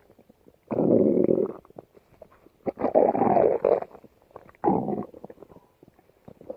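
Stomach growling: three separate rumbles, each lasting under about a second, with short quiet gaps between them.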